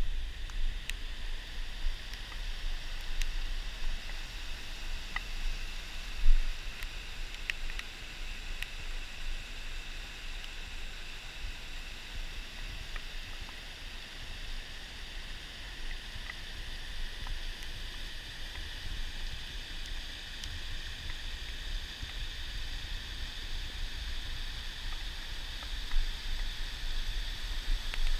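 A brook rushing over rock ledges in small cascades: a steady hiss of water, with low wind rumble on the microphone. A single thump stands out about six seconds in.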